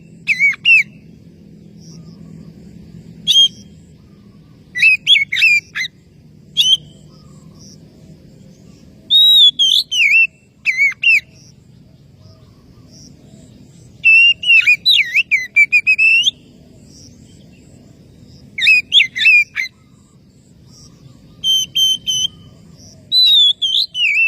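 Oriental magpie-robin (kacer) singing loud, whistled, sliding phrases in short bouts of a second or two, with pauses of a few seconds between them. This is the challenge song that calls out rival males.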